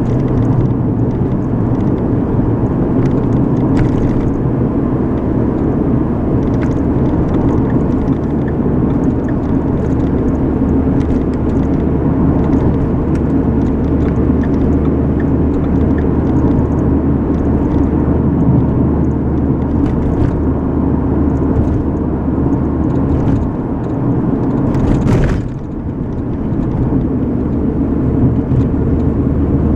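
Steady road and engine noise of a moving car heard from inside the cabin, a continuous low rumble and hum. Near the end there is one short whoosh.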